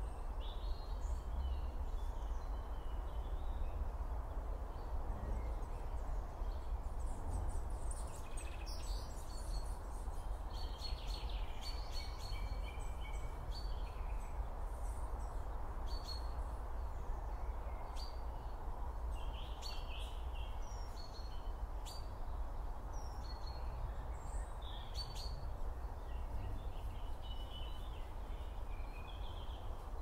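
Outdoor woodland ambience: small birds chirping and calling on and off over a steady low rumble of wind.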